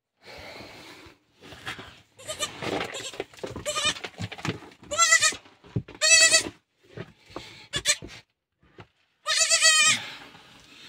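Newborn goat kid, fallen deep into a rock crevice, bleating: three high, quavering bleats, about five and six seconds in, then a longer one near the end. Rustling and scuffing noises come before them.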